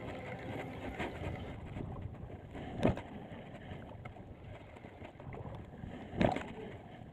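Shallow sea water lapping and wind noise, steady, with two sharp knocks about three seconds apart.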